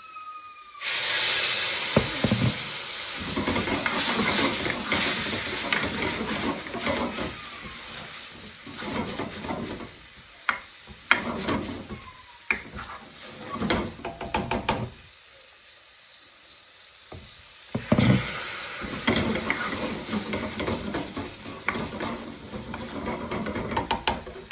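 Water poured from a kettle into a hot pan of curry hits the pan about a second in with a loud sizzling hiss. A metal spoon then stirs and scrapes against the pan, knocking as the sauce keeps sizzling. It quietens for a couple of seconds about two-thirds through, then the stirring and sizzling pick up again.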